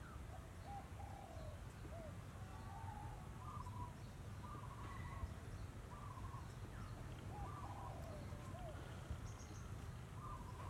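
Birds calling: short, curving call notes repeated about once a second, over a steady low rumble.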